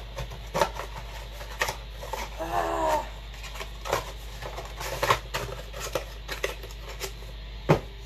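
Paper packaging and a cardboard box being handled and unpacked, with tissue paper crinkling and rustling in scattered short clicks and scrapes. A single sharp knock near the end.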